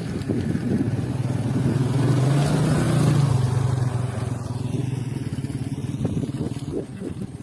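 A motor vehicle engine running steadily, growing louder to a peak a few seconds in and then easing off.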